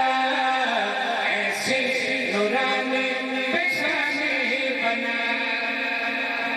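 Men chanting a qasida, a devotional praise poem, in long held notes.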